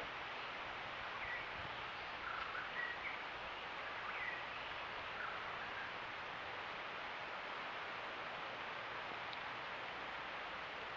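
Steady outdoor background hiss with a few short bird chirps in the first half.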